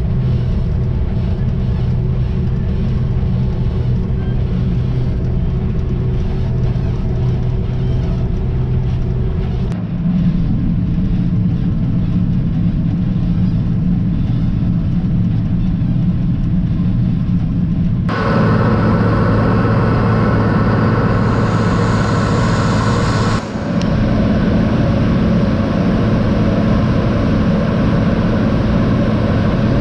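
Diesel engine of heavy farm machinery running steadily under load, a constant low hum with a steady whine above it. The sound changes abruptly about 10, 18 and 23 seconds in.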